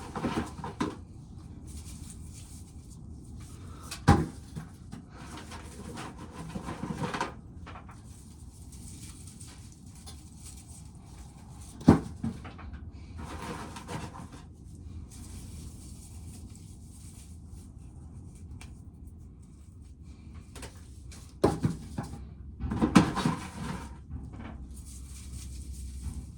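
Occasional sharp knocks and clunks, with a cluster of them near the end, and stretches of rustling handling noise in between.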